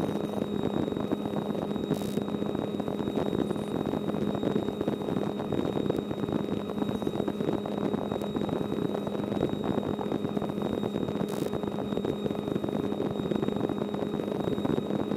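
Light aircraft's piston engine and propeller droning steadily in cruise, heard inside the cockpit, with a faint steady high whine over it and two faint clicks.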